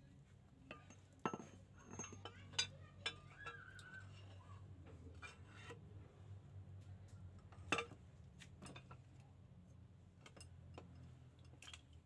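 Scattered metallic clinks and knocks as a Toyota Avanza's greased steering rack bar is handled and slid into its rack housing, the sharpest knock a little past the middle.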